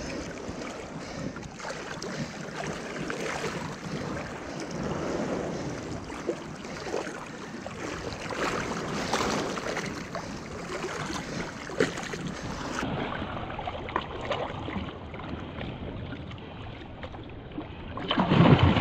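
Shallow surf water sloshing and splashing around a snook held by the lip in the wash. A louder splash comes near the end as the released fish kicks free and swims off.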